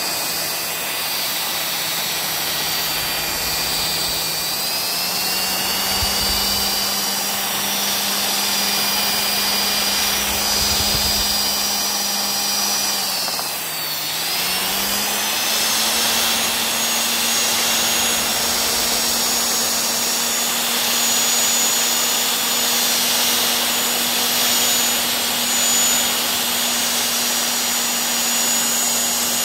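Electric hand mixer with wire whisk beaters running steadily as it beats flour into an egg-and-sugar batter. Its pitch steps up slightly a few seconds in, dips briefly about halfway through, then holds a little higher.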